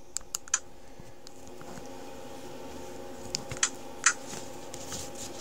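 A few sharp clicks and taps as small tools and a tiny motor are handled on a workbench, over a steady low hum.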